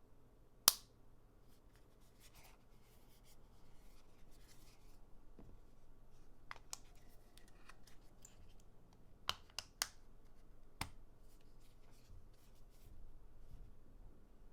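Hands handling a phone and its accessories: soft rubbing and scraping, with one sharp click just under a second in, the loudest sound, and four smaller clicks in quick succession a little past the middle.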